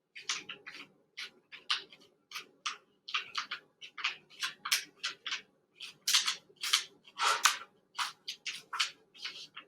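A sheet of paper being folded and creased by hand into a paper airplane's wings: a quick, irregular string of short crisp rustles and creasing strokes, with a longer, louder rustle about seven seconds in.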